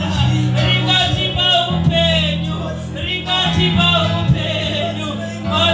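Gospel worship song: voices singing over an instrumental backing with held low bass notes that change about every second.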